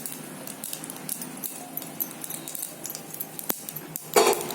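Mustard seeds crackling and popping in hot oil in a pan for a tempering: a scatter of small irregular clicks over a faint sizzle, with one sharper pop about three and a half seconds in and a brief louder noise near the end.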